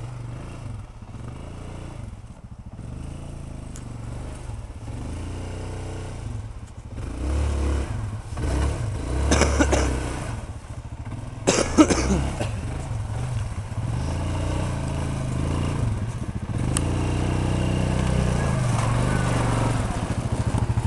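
ATV engine running as the four-wheeler climbs over snow and dirt mounds, surging louder in bursts of throttle about seven to twelve seconds in, with a sharp knock near the twelfth second. Toward the end an ATV engine runs steadily close by.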